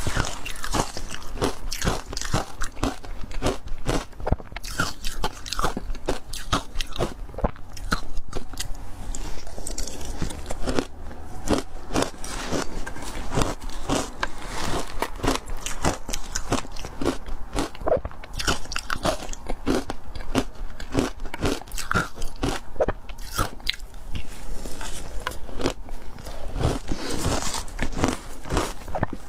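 Close-miked crunching of ice being bitten and chewed, with a dense run of sharp, irregular cracks and crunches.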